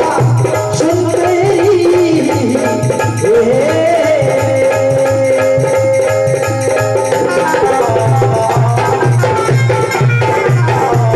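A male voice sings a nirguni bhajan over a fast tabla-style drum beat played on an electronic percussion pad. The melody winds through the first few seconds, then a long note is held for a few seconds while the drumming goes on.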